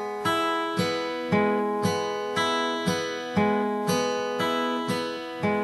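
Acoustic guitar in open D tuning fingerpicked on the treble strings only, without the thumb's bass line: a steady pattern of single plucked notes, about two a second, each left ringing.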